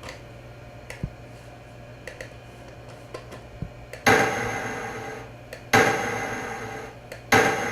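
A digitised percussion sample played back from the Amiga sampler three times, about one and a half seconds apart, each hit starting sharply and dying away. A few faint clicks come first.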